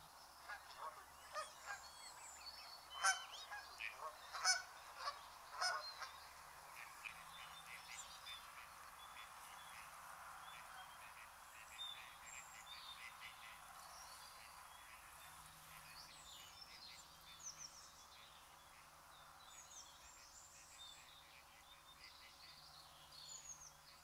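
Canada geese honking from a flock: a run of loud honks in the first six seconds, then fainter, scattered calls. Smaller birds call and whistle throughout.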